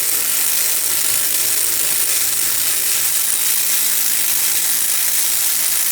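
A 3/8-inch ratchet with a 7 mm Allen bit running steadily, backing out a rear brake caliper guide bolt. It stops abruptly at the end, with the bolt free.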